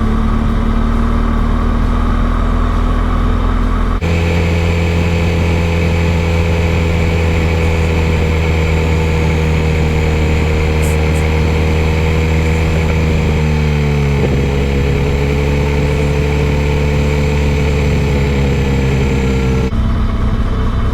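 Motorcycle engine running steadily while riding, its pitch dropping and then climbing back about two-thirds of the way through.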